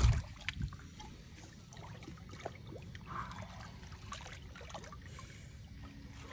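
Faint sloshing and trickling of water around people standing waist-deep, holding two large catfish in the water as they are released. Small scattered splashes sit over a low steady rumble.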